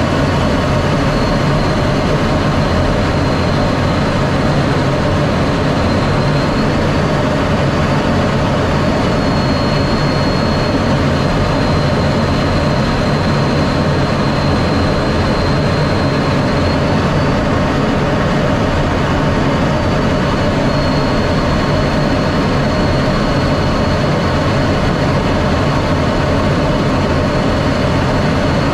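F-16D fighter jet's engine running, a steady loud rumble with a faint high whine above it.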